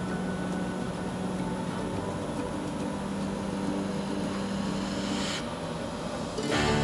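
Wood lathe running with a steady hum while turning a wooden pepper-mill blank, with a brief hiss about five seconds in. The sound suddenly gets louder just before the end.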